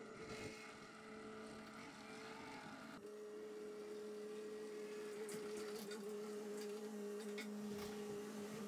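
Bobcat E42 mini excavator running, a faint, steady engine hum that grows slowly louder as the machine tracks closer, with a few faint clicks near the end.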